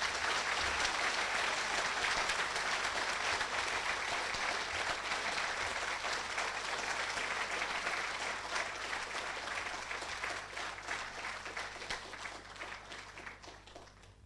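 Audience applauding, the clapping steady at first and then dying away over the last few seconds.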